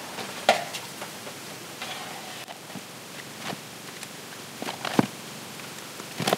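Thick epoxy paste being scooped with a wooden stick from a plastic mixing cup and loaded into a plastic syringe: a few scattered light taps and clicks over a low hiss, the sharpest about five seconds in.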